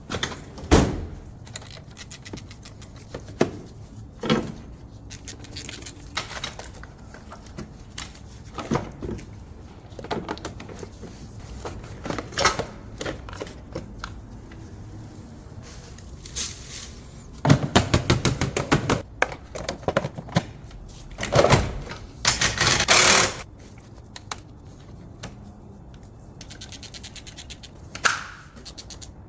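Hand-tool work on a car battery: scattered knocks, clicks and thunks of metal and plastic being handled, with two runs of rapid clicking a little past halfway, typical of a ratchet wrench working the terminal or hold-down nuts.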